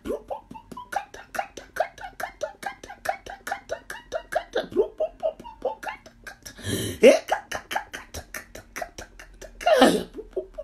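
A woman praying aloud in tongues: a fast, even run of short syllables, several a second, without recognisable words. Two louder, breathy outbursts come about seven and ten seconds in.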